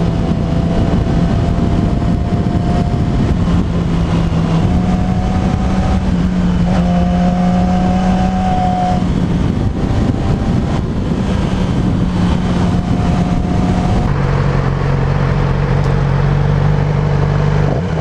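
Yamaha inline-four sportbike engine running at a steady cruise, with heavy wind and road noise over the microphone. The engine note steps up in pitch about four and a half seconds in and drops again about fourteen seconds in, as the throttle changes.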